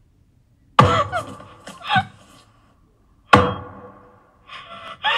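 Two heavy booming thuds, about a second in and again about three seconds in, each ringing on and dying away slowly. Between them come short voice sounds that bend in pitch, and a breathy rush near the end: a horror cartoon's sound effects.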